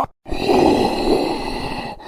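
A groaning, voice-like sound whose pitch bends up and down, over a few steady high tones. It starts right after a brief cut to silence.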